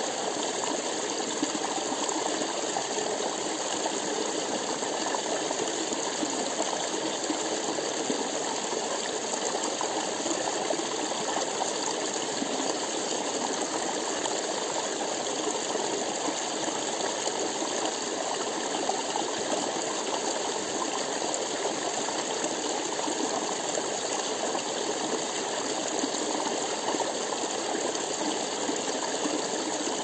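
Small mountain stream splashing down a short cascade over rocks, a steady, unbroken rush of running water.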